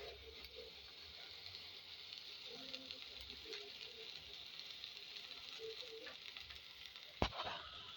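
Chopped sukuma wiki (collard greens) sizzling in hot oil with onions in a pan. A single sharp knock sounds about seven seconds in.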